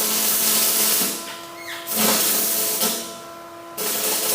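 Stick welding with 6011 rods on galvanized, rusty steel: the arc hisses and crackles in three short bursts, like tack welds, with brief pauses between them.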